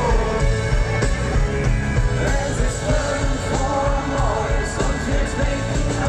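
German pop-rock band playing live, with electric guitars, bass, drums and a singing voice, heard loud and steady from within the arena crowd.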